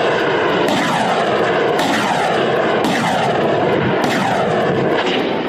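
Pickup-mounted multiple rocket launcher firing a salvo: rockets leave the tubes one after another, about one a second, over a continuous rushing roar with falling pitch sweeps.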